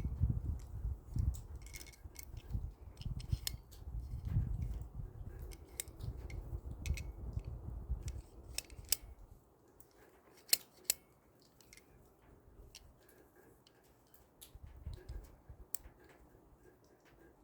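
Small sharp metallic clicks from an OTF automatic knife being handled and worked on, over low rumble for the first nine seconds or so. Two louder snaps come about half a second apart a little after ten seconds.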